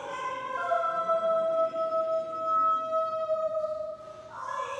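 A Korean traditional singer's (sorikkun's) voice holding one long, steady note for about four seconds, then moving into a new, lower note near the end.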